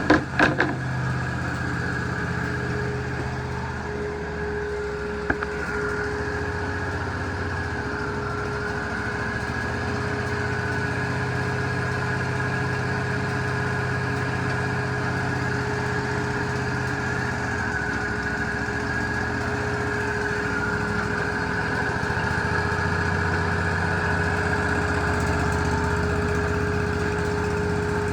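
Wood-Mizer LT40 portable band sawmill running steadily, its engine and band saw going without a break, with a few sharp knocks just after the start and another about five seconds in.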